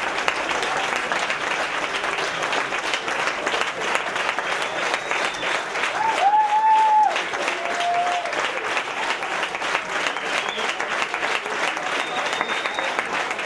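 Audience applauding steadily. About six seconds in, a long cheering call rises above the clapping, followed by a shorter one.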